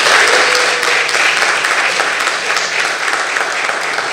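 Audience applauding at the end of a talk, a dense round of clapping that thins and eases off toward the end.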